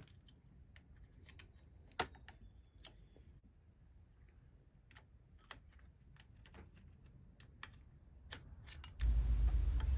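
Faint, scattered metallic clicks and ticks of a hand driver working out the bolts of an aluminium suspension-fork brace, with one sharper click about two seconds in. A low steady hum comes in near the end.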